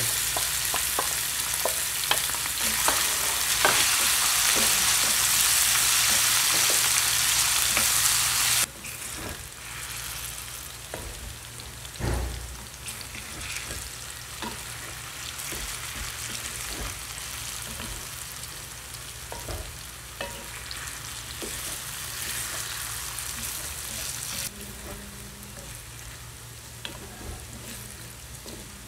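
Diced carrots and potatoes sizzling in hot oil in a frying pan, stirred with a wooden spatula that clicks and scrapes against the pan. The sizzle is loud at first, drops sharply about nine seconds in and carries on quieter, with a single louder knock soon after.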